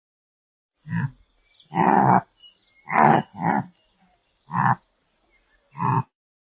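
An animal's recorded calls: six short calls about a second apart, two of them close together near the middle.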